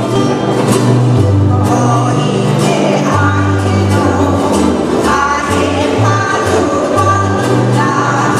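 Live Hawaiian band music: ukuleles strummed over a bass line that steps between held notes, with a group of voices singing.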